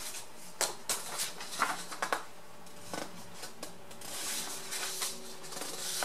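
Paper handling at a desktop printer: a string of light clicks and rustles as sheets are taken up, then the printer running with a steady hum and hiss through the second half.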